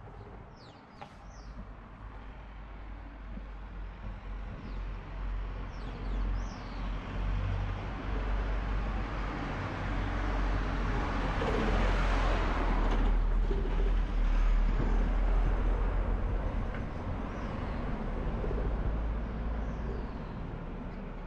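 A car passing along the street, its tyre and engine noise swelling to a peak about halfway through and then fading, over a steady low rumble. Birds chirp briefly a few times.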